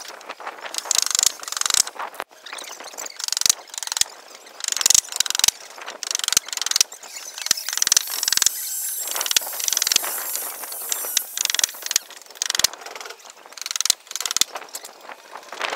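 Busy clicking and knocking from work on wooden formwork boards, with a steadier stretch of hissing noise about halfway through.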